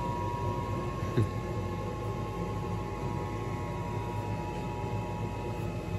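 Orange tabby cat purring steadily, close by, while being stroked and scratched under the chin, with one short falling sound about a second in.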